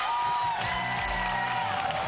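Short TV segment-intro music: held notes over a steady drum beat.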